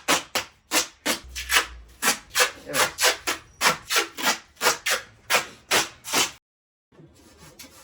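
Rhythmic scrubbing or rubbing strokes on a turbocharger housing being cleaned by hand, about three strokes a second, that stop suddenly about six seconds in.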